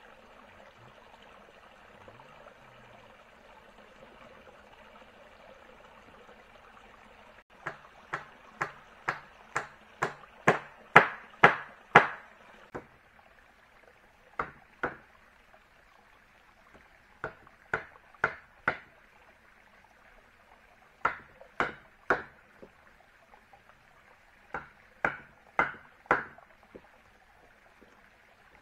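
Wood being struck hard and repeatedly with a tool, each blow sharp and ringing. About seven seconds in comes a run of about a dozen blows at roughly two a second, followed by shorter groups of two to four, over a faint steady hiss.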